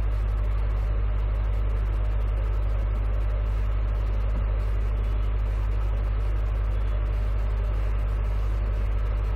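Steady low hum with an even hiss above it, unchanging throughout.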